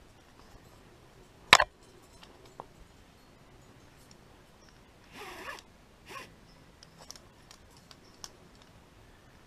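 Climbing gear and rope being handled against the rock: one sharp metallic-sounding knock about a second and a half in, then two short rasps a little past the middle, like rope being pulled through, and a few light clicks.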